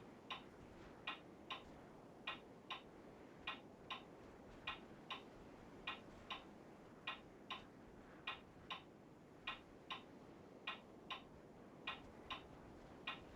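Faint, even ticking in uneven pairs, tick-tock about 0.4 s apart with each pair coming every 1.2 s or so, like a mechanical clock.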